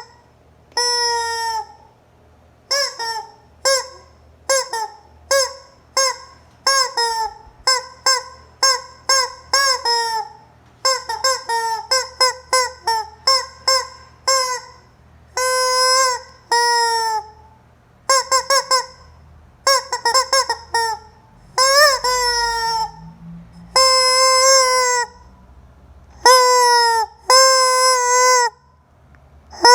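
Rubber chicken squeeze toy squawking over and over as it is squeezed. Short squawks come in quick runs, with longer drawn-out ones of about a second mixed in, and each squawk drops in pitch at its end.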